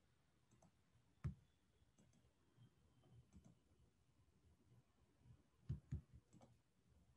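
Near silence with scattered faint clicks from a laptop being worked, the sharpest about a second in and a close pair near the end.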